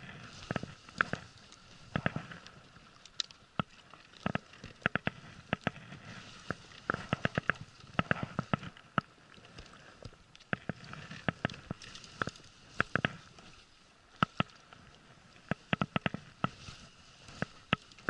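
Baitcasting fishing reel clicking in short, irregular bursts of sharp ticks while a big red sea bream is played on the line.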